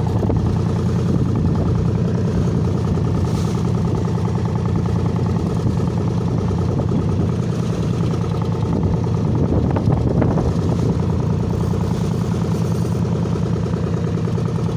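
Fishing boat's engine running steadily at an even speed while under way.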